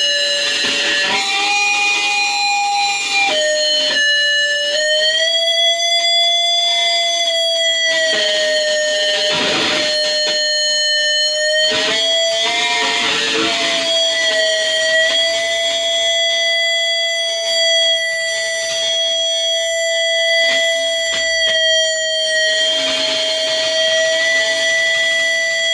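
Electric guitar feedback through an amplifier: a sustained ringing tone with overtones. It jumps in pitch a few times in the first few seconds, then holds nearly steady.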